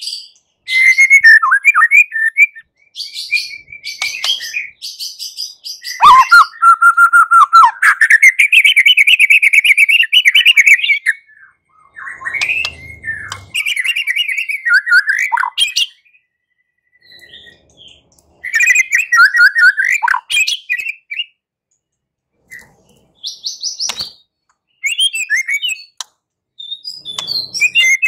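White-rumped shama (murai batu) singing its aggressive, fighting-style song: loud bursts of fast, varied whistled phrases with short pauses between them. In the first half it holds a long run of rapidly repeated notes.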